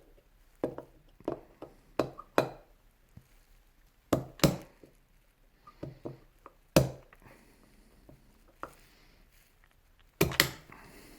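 Irregular sharp knocks and clacks of rotary hammer parts being handled during disassembly, a dozen or so separate strikes with quiet between them and a quick pair near the end.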